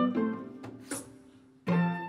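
Orchestral strings playing pizzicato: short plucked notes and chords that start sharply and die away quickly, with a brief lull before a new plucked chord near the end.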